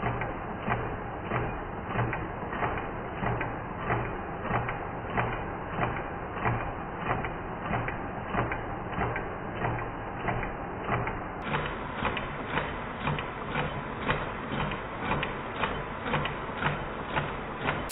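Homemade magnet-driven crank and flywheel machine, powered by a small 12 V electric motor, running steadily with a mechanical whir and a regular knock about every two-thirds of a second.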